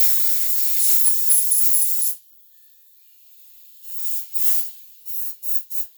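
Aerosol carburetor cleaner spraying into a chainsaw carburetor: one loud hiss of about two seconds, then several short, quieter spurts near the end.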